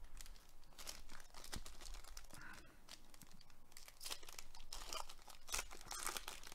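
Foil wrapper of a Panini Prizm baseball card pack being torn open and crinkled by hand, in irregular crackling bursts.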